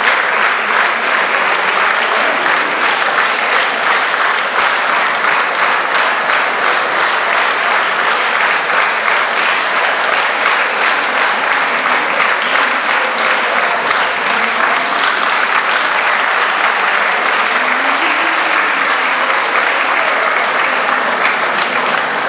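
Large audience applauding steadily, a dense continuous clapping.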